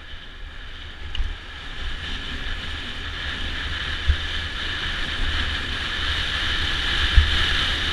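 Wind buffeting a mountain biker's helmet or chest camera microphone, with the steady hiss of tyres rolling over a loose, stony trail on a fast descent. The sound grows louder as speed builds, with low thumps from bumps in the trail.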